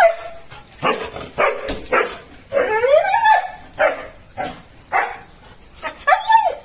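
Pet dog barking over and over in short barks, with two longer rising-and-falling whining yelps, one about halfway through and one near the end.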